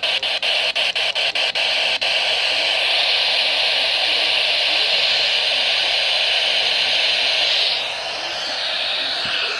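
Radio static hiss from a receiver tuned to a weak weather-radio broadcast. It chops in and out rapidly for the first two seconds, then runs as steady hiss that drops in level and changes character about eight seconds in, drowning out the announcer's voice.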